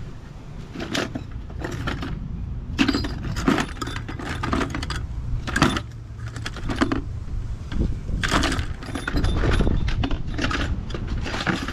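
Metal tools and fittings clinking and rattling over and over as someone rummages through a tool bag, with a steady low rumble underneath.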